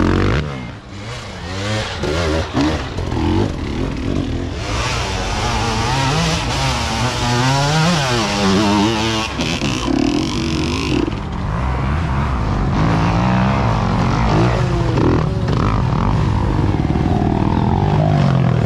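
Dirt bike engines revving hard under load on a steep climb. Their pitch swings up and down as the throttle is worked, with a rougher, hissier stretch in the middle.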